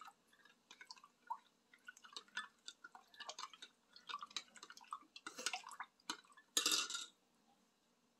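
Metal spoon stirring sauce in a glass measuring cup: faint, quick clinks and liquid sloshing, with a louder clatter near the end as the spoon comes to rest against the cup.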